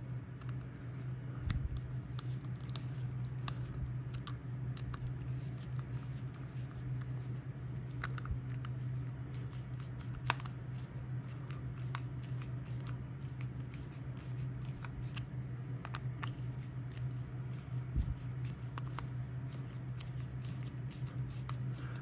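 Screwdriver turning the cord-clamp screws of a plastic electrical plug, with faint scattered clicks and hand-handling noise and one sharper click about ten seconds in. A steady low hum runs underneath.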